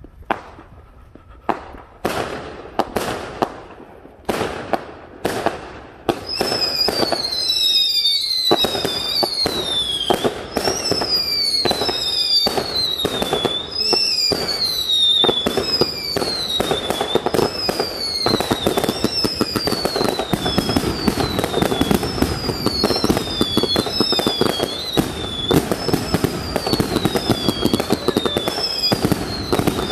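Multi-shot consumer aerial firework cake firing. For the first six seconds come separate sharp bangs every half-second or so. Then it turns into a rapid, continuous stream of crackling shots and bursts, with whistles that fall in pitch, one after another about once a second.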